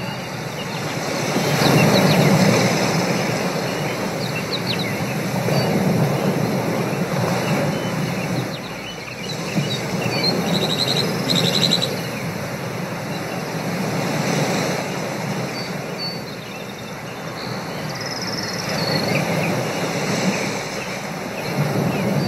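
Ocean-voyage ambience soundscape: a steady wash of noise that swells and fades every few seconds, with brief high chirps about halfway through.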